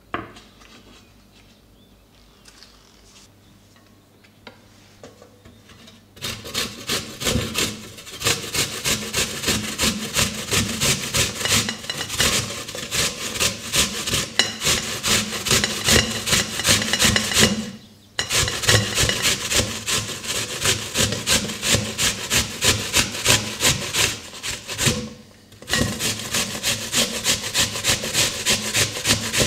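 Apples being grated on a hand grater: rhythmic rasping strokes, about three a second, starting about six seconds in, with two short pauses.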